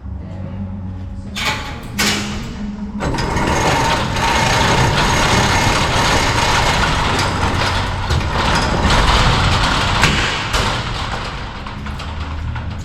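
Motorized shop door closing: a steady motor hum with a long stretch of rattling, scraping door noise in the middle.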